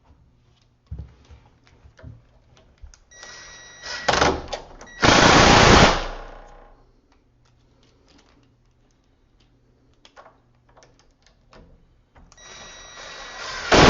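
Power drill driving the screws that hold a deadbolt latch plate into the edge of a door: two runs of motor whine, the first about three seconds in and loudest as the screw seats, the second near the end. Small clicks and handling sounds between the runs.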